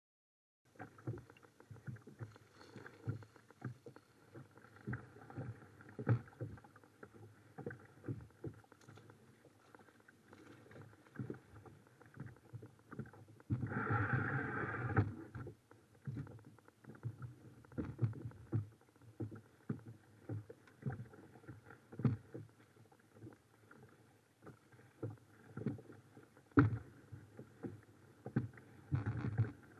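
Irregular knocks and rustling from a person shifting about in a kayak among reeds, with a louder rush of noise lasting about two seconds midway.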